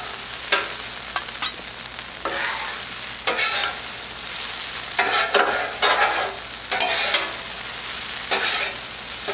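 Two metal spatulas scraping and chopping fried rice on a hot Blackstone flat-top griddle, over a steady sizzle from the griddle. The strokes come irregularly, about a dozen of them.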